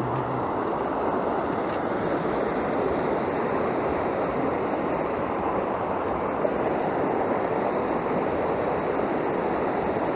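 Mountain stream rushing over rocks in white-water rapids, a steady unbroken noise of churning water.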